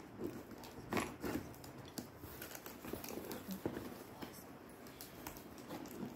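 Kitchen knife slitting the packing tape on a cardboard parcel, with irregular scraping, tapping and crinkling as the cardboard flaps are worked open. The loudest scrape comes about a second in.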